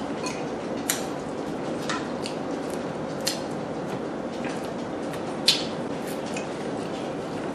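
Close-up eating sounds: wet squishing and chewing of lobster meat, broken by sharp clicks and cracks of lobster shell being picked apart by hand, the loudest about five and a half seconds in. A steady background hiss lies under it.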